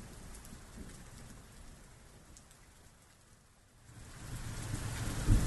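Rain with a low rumble like distant thunder: faint at first, dipping almost to silence about three and a half seconds in, then swelling up quickly and loud by the end.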